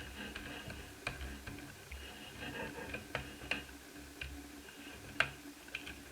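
Scattered light clicks and taps, irregular and a second or so apart, the sharpest about five seconds in, from hand work with a screwdriver and plastic parts on the Asus F5R laptop's top case under the keyboard, over a steady low hum.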